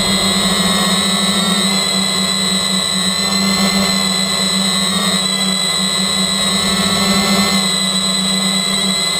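Quadcopter's electric motors and propellers running with a steady whine, picked up by the onboard camera, the pitch shifting slightly now and then as the throttle changes.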